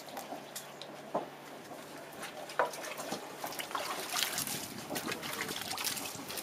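Hands squeezing and kneading wet fishing bait paste in a plastic bucket: irregular wet squelches and small clicks, busier in the second half.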